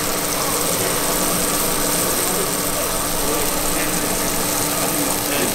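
A steady machine hum with a constant hiss over it.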